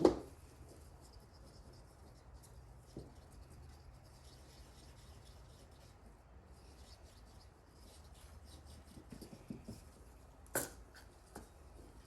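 Faint handling sounds of hands working at a resin craft piece: light rubbing and small clicks, with a sharp knock at the very start and another about ten and a half seconds in, over a low steady hum.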